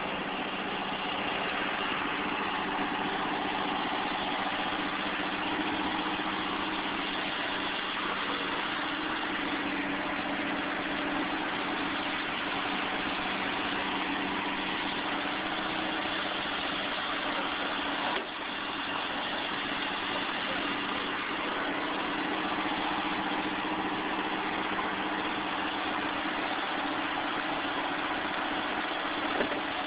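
Vehicle engine idling steadily, a constant hum with no change in pitch.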